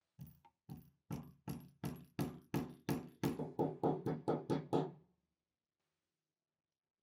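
Hammer tapping on a small workpiece in a run of about sixteen blows that come faster and louder, stopping about five seconds in.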